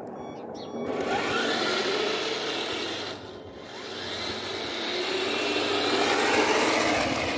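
Electric drive motors and gearboxes of a 1/16 scale RC Stuart light tank whining as it drives on tarmac at slow speed, with its tracks rattling on the road surface. The whine rises and falls in pitch, fades briefly around the middle of the run and grows louder again near the end.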